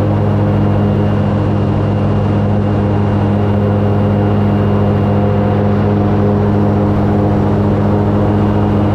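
Airboat engine and propeller running steadily: a loud, even drone that doesn't change pitch.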